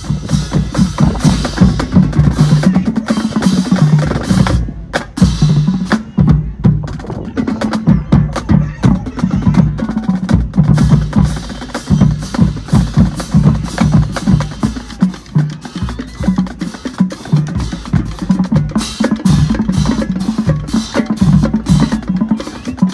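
Marching band music led by its drumline: rapid snare and bass drum strikes with sharp stick clicks over a throbbing low pitched pattern, easing off briefly about five seconds in.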